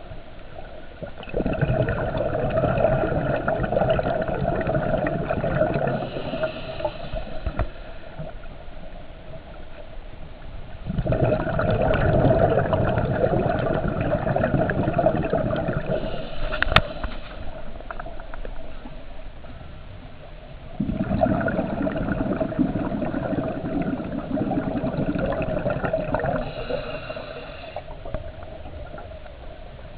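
Scuba diver breathing underwater through a regulator: three long rumbling bursts of exhaled bubbles, each lasting several seconds, with quieter gaps for the inhalations between them. There is a single sharp click about halfway through.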